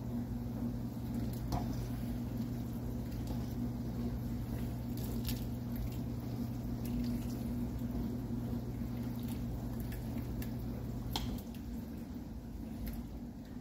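Hot soup ladled from a stainless steel stockpot into a ceramic bowl: liquid sloshing and dripping, with a few light clinks of the metal ladle. A steady low hum runs underneath and stops about eleven seconds in.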